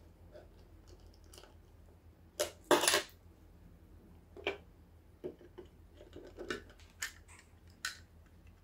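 Small hard clicks and knocks of a plastic computer mouse being reassembled by hand, parts and a small tool tapping and clattering on a desk. The loudest is a short clatter about two and a half to three seconds in, with lighter knocks spaced through the rest.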